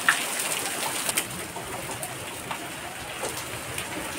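Heavy pouring rain falling on leaves and surfaces: a steady hiss scattered with drop strikes, a couple of sharper close hits near the start and about a second in.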